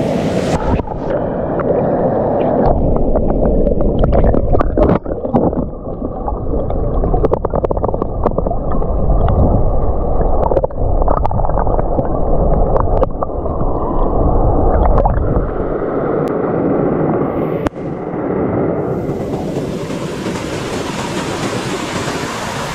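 Wind buffeting the microphone of a camera on a moving motorcycle: a loud, heavy rumble with many crackling knocks, easing into a steadier hiss near the end.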